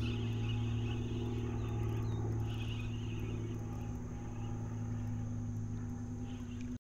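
A steady low motor hum, with high chirping over it in the first half.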